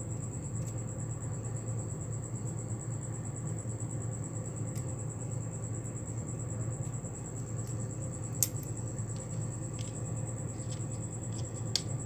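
Small sharp metallic clicks from split-ring pliers and a steel split ring being worked onto a fishing lure's eye, a few scattered ticks with the loudest about eight and a half seconds in. A steady low rumble and a faint high whine run underneath.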